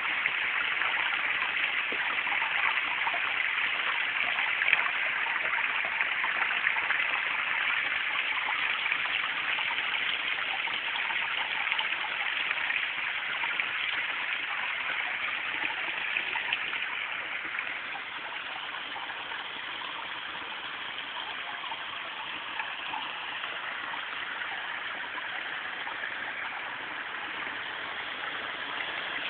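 Backyard koi-pond waterfall spilling over rocks into the pond: a steady rush of falling water, a little softer after the middle.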